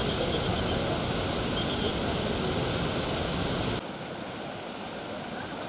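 Floodwater rushing, a dense, steady noise. About two-thirds of the way in it cuts suddenly to a quieter rush.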